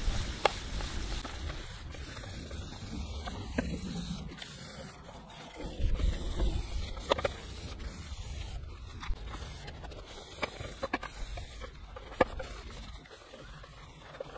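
A cloth rubbing polishing compound by hand over a car's painted fuel filler flap. The rubbing is strongest in the first second or two, and scattered light clicks and knocks come through the quieter stretch after it.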